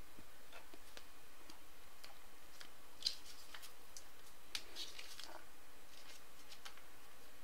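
Trading cards being handled: faint scattered clicks and short light rustles of card stock and plastic over a steady low hiss.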